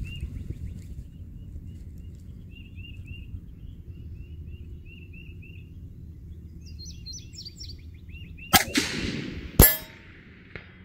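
Two rifle shots about a second apart near the end, each a sharp crack, the second the louder, the first trailing off in a rolling echo. Before them a small bird chirps over and over.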